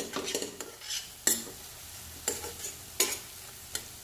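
Spatula scraping and knocking against a stainless steel frying pan while stirring softened onions and tomatoes in oil, with a faint sizzle of frying underneath. About seven irregular scrapes, the loudest right at the start.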